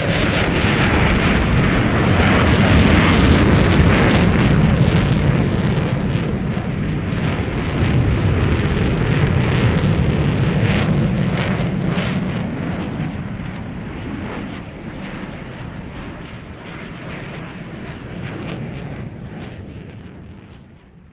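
Jet aircraft passing, a loud crackling rumble that is strongest in the first few seconds and then fades away over the last several seconds.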